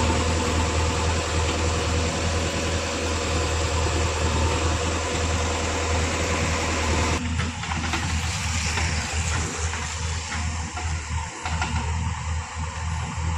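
Diesel engine of earthmoving machinery running steadily with a low, even hum. The sound changes abruptly about seven seconds in, the middle range dropping away while the low engine note goes on.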